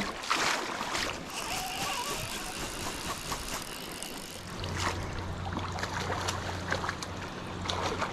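River current rushing around a wading angler, with splashing from a hooked trout being played on a fly rod; a loud splash about half a second in. A low steady hum joins about halfway through.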